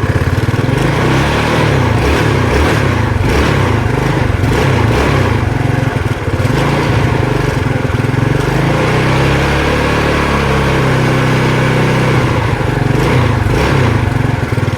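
Yamaha Mio Sporty scooter's small single-cylinder four-stroke engine running on gasoline poured into its carburetor, with the fuel line clamped. Its speed keeps wandering up and down instead of holding a steady idle.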